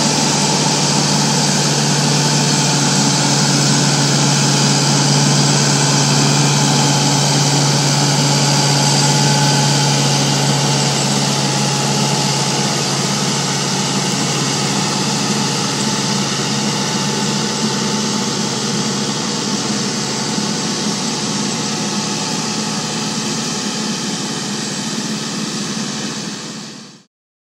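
Aebi TP450 transporter's diesel engine running steadily under load as it pulls a loaded hay loader wagon on a steep meadow, its level easing slowly before cutting off abruptly near the end.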